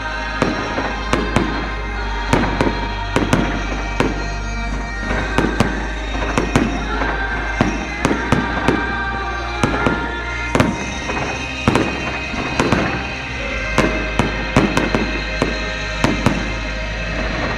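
Fireworks display: a rapid, irregular string of bangs, several a second, with music playing alongside.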